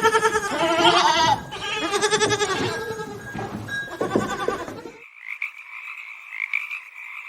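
Several loud, quavering bleats from a farm animal. About five seconds in, these give way abruptly to frogs croaking in a steady, pulsing chorus.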